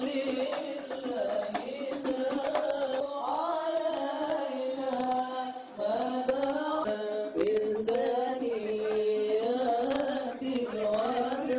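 Devotional Islamic chanted singing with hand-drum percussion, a melodic line that rises and falls in long held phrases.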